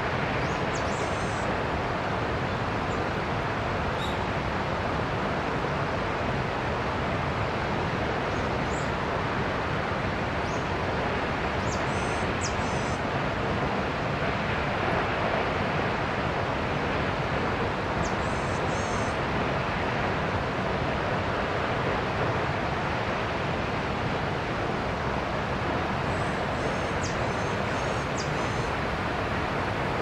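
Senpiro Falls waterfall rushing in a steady, unbroken wash of water noise, with a few faint high chirps now and then.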